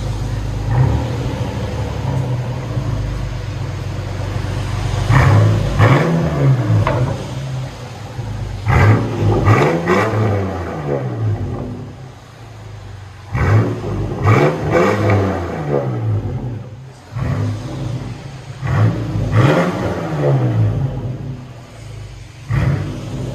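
2004 Nissan Xterra on a freshly fitted straight-pipe exhaust, the factory muffler removed and a Y-pipe feeding dual pipes into quad tips. It idles for about five seconds and is then revved four times, each rev rising and falling back to idle.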